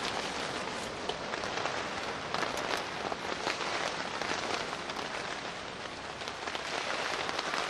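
Steady rain falling in a storm, with many separate drops striking close by.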